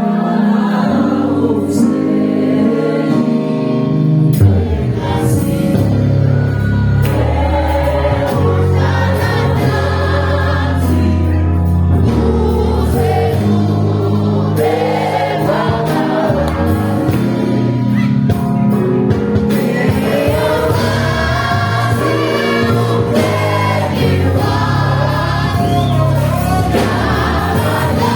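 Live gospel music: a choir singing with band accompaniment and a steady bass line.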